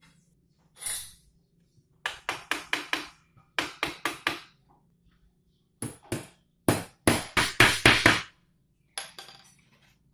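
Hammer striking in quick runs of sharp knocks, several strikes a second, with pauses between the runs.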